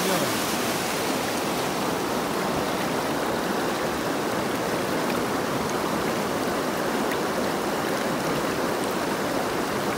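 Small rocky mountain stream rushing over stones in whitewater: a steady, even rush of water.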